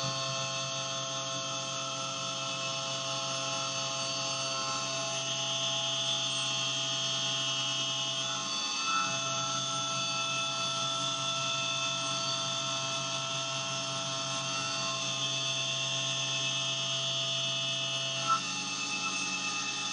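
Syil X7 CNC milling machine's spindle running steadily while its end mill cuts a metal block under flood coolant. The result is a steady machine whine made of several fixed pitches.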